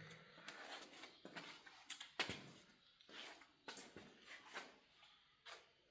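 Near silence with a few faint, scattered taps and clicks.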